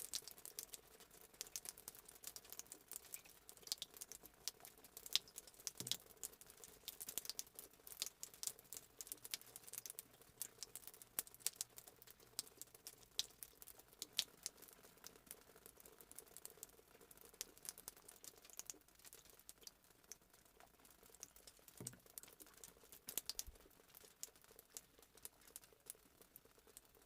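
Rainwater dripping after a shower: many small, irregular drops ticking and pattering, some louder and closer than others, with no steady rain underneath.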